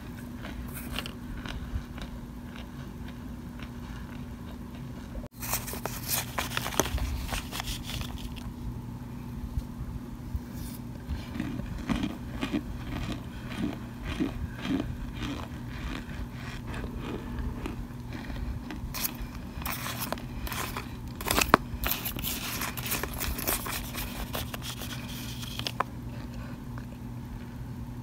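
Plastic spoon scraping and pressing through baked cornstarch chunks and loose powder in a glass bowl, giving clusters of fine crunching and crackling. The crunching starts about five seconds in and is thickest near the start and again in the last third, over a steady low hum.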